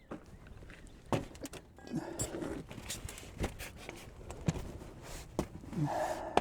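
Footsteps with scattered sharp clicks and knocks, several loud ones about a second in and again near the middle.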